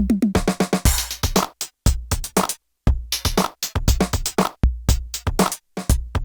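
IK Multimedia UNO Drum hybrid analog/PCM drum machine playing a pattern of deep kick thuds, snare hits and hi-hats. The pattern cuts out briefly about halfway through.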